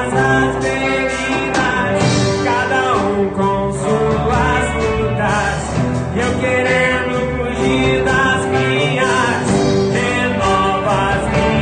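A Christian worship song with a singer's voice over a full band.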